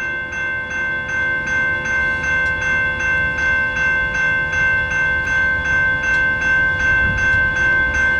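Railroad grade-crossing warning bell ringing steadily, about two and a half strikes a second, over a low rumble that grows slightly louder near the end.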